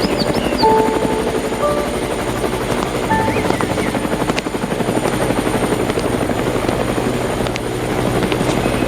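Helicopter rotor and engine running steadily with a fast, even rotor chop. A few soft musical notes sound over it in the first few seconds.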